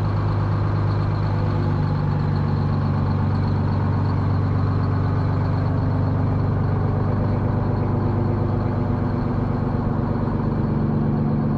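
Kenworth semi truck's diesel engine idling steadily, an even low-pitched drone that does not change.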